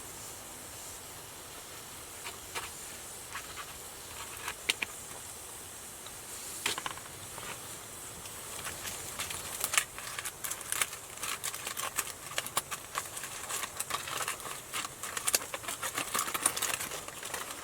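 Food frying in a pan on a gas camp stove: a steady hiss, with sizzling pops and crackles that grow much busier from about halfway through.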